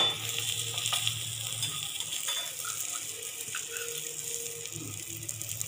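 Cheese paratha sizzling on a hot tawa just after being flipped, a steady hiss with a sharp knock at the very start.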